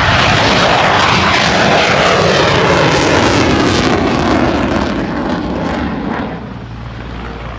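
A fixed-wing aircraft's engines during a loud low pass, the sound falling in pitch as it goes by and easing off after about six seconds.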